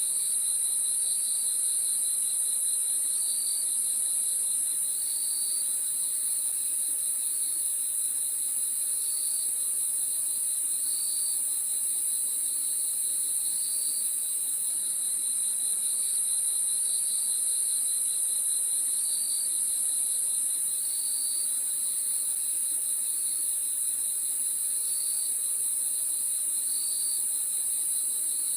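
Night chorus of crickets trilling steadily and high-pitched, with short chirps repeating every second or two over the continuous trill.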